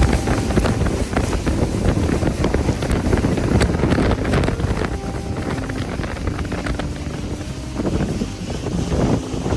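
Motorboat running across the lake in a storm, with heavy wind buffeting the microphone and irregular knocks throughout.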